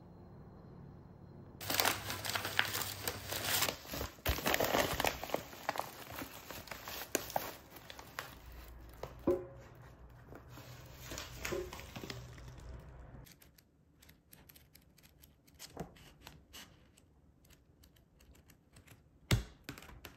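A book's wrapping being torn open and crinkled, starting about two seconds in and going on for around ten seconds, then softer rustling with a few light clicks and one sharp tap near the end.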